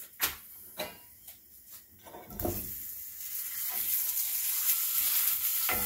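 Ground beef dropped into a hot cast-iron skillet, landing with a thump about two and a half seconds in and starting to sizzle. The sizzle builds and then holds steady as a wooden spoon pushes the meat around, after a few light knocks at the start.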